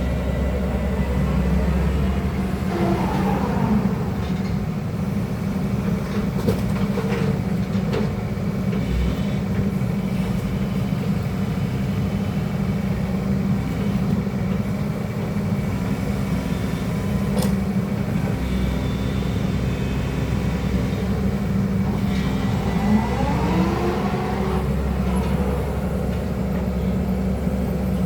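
Hydraulic excavator working: the engine runs steadily, with a whine that rises and falls twice (a few seconds in, and again near the end) as the machine is worked. A few sharp clunks come in between.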